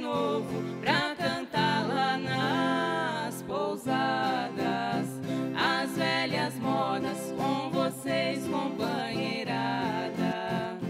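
A women's duo singing a Brazilian caipira (sertanejo raiz) song together, accompanied by two violas caipiras, the ten-string Brazilian folk guitars, strummed and plucked.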